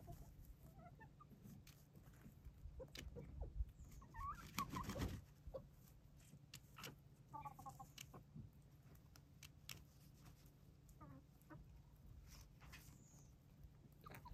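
Icelandic chickens clucking softly now and then while foraging, with a handful of short calls scattered through.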